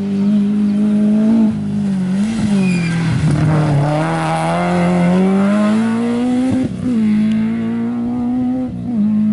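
A Peugeot 106 rally car's engine running hard, its note dipping a few seconds in, then climbing back up and holding. In the middle there is a rush of noise as the car runs off the road across the verge and ploughs into a wheat field.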